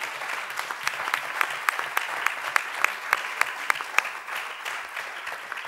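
Audience and panel applauding: a steady round of clapping that thins out near the end.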